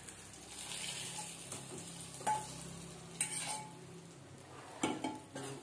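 Faint sizzle of hot oil as fried boiled eggs are tipped and scraped out of a small steel kadai into a pot of curry, with a few light clinks of steel against steel, one ringing briefly about two seconds in.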